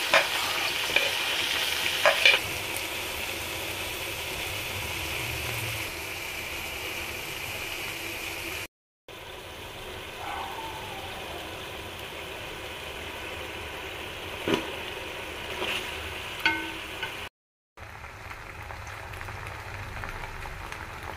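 Chicken and tomato masala sizzling as it fries in a cooking pot, with a few sharp knocks of a utensil against the pot or plate. The sound breaks off briefly twice.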